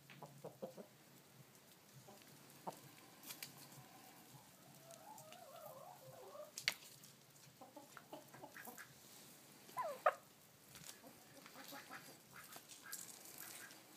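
Backyard poultry clucking softly. A warbling run of calls comes about five seconds in and two short falling calls near ten seconds, with scattered sharp clicks throughout.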